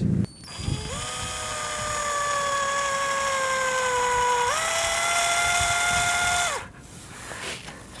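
Cordless drill driving a big wood screw into a car tyre's tread as a makeshift stud. The motor whine sags slowly in pitch under load, jumps higher about four and a half seconds in, and stops about two seconds later.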